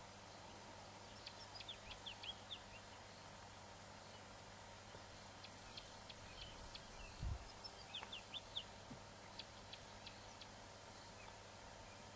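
Faint bird chirps: several quick series of short, high notes over a steady background hiss. A brief low thud about seven seconds in.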